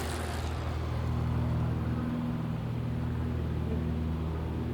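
A nearby engine running steadily with a low, even hum, and a brief hiss at the start.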